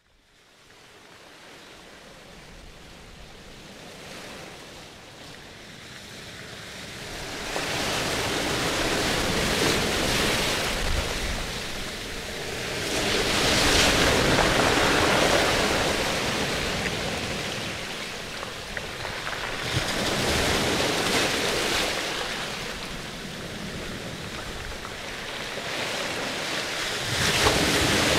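Rushing noise like surf, fading in from silence at the start and then swelling and ebbing in slow waves every several seconds.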